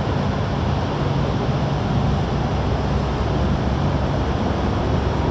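Steady low engine rumble under a rushing, wind-like noise that does not change, as of a ship running across open harbour water.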